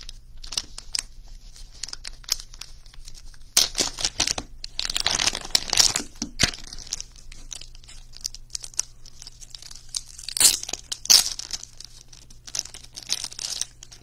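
Plastic wrapping of a trading-card pack being torn open and crinkled by hand, in irregular crackling bursts that are loudest about four to six seconds in and again around ten to eleven seconds.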